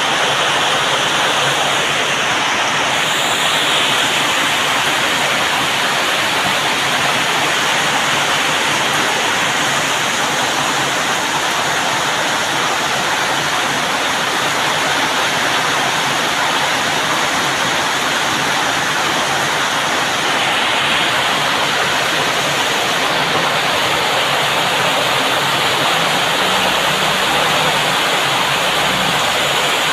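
Heavy tropical rain pouring down in a steady, dense hiss, with a faint low rumble near the end.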